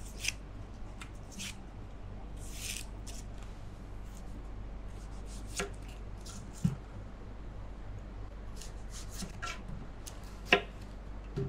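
Small kitchen knife scraping and peeling the dry skin off yellow onions, with a few sharp knife taps on a plastic cutting board as the ends are trimmed off, over a faint steady low hum.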